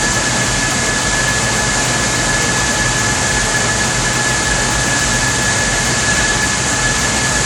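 Heavy machinery running steadily and loudly, a dense even noise with a constant high whine over it.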